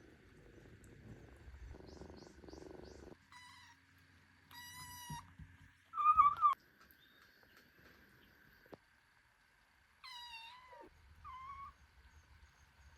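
A cat mewing: about five short, high-pitched mews spread through the stretch, the loudest about six seconds in.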